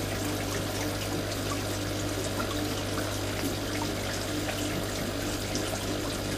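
Aquarium water trickling and splashing steadily, as from a filter outflow, over a steady low hum.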